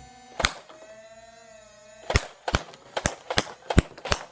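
Nerf Modulus flywheel dart blaster with its motor whining steadily, firing seven darts: one shot about half a second in, then six more in quick succession, about two to three a second.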